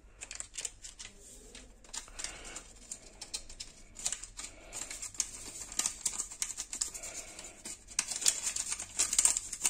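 Hot sugar syrup in a stainless steel pot crackling with fine, irregular ticks as soda powder is shaken in from a paper sachet. The crackle grows denser and louder about eight seconds in.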